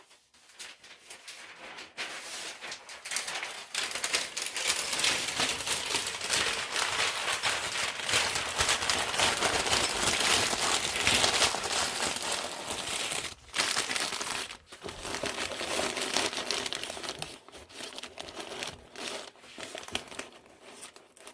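Packing paper crumpled and crinkled by hand, a dense continuous crackle that starts about two seconds in and runs on with two brief pauses past the middle.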